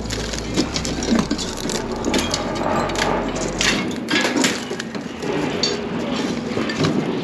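Rusty scrap iron being pulled out of a loaded cargo bed and tossed aside by hand: irregular clanks, knocks and scrapes of metal pieces against each other.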